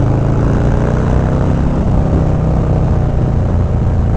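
Harley-Davidson Milwaukee-Eight 114 V-twin on a 2020 Low Rider S running through a Two Brothers Racing (TBR) 2-into-1 exhaust, heard from the rider's seat while cruising at a steady speed. The exhaust note is a deep, even rumble.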